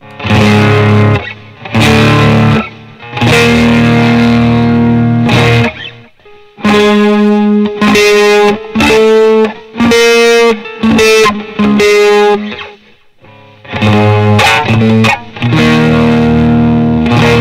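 Stratocaster-style electric guitar played through an amplifier. Chords ring for a second or two with short breaks between them, with a run of shorter, choppier chords in the middle.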